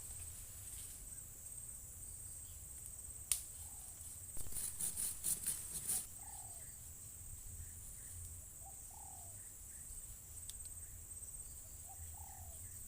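Crickets chirring steadily and high-pitched, while a bird gives a short call every two or three seconds. A brief spell of crackling rustle comes a few seconds in.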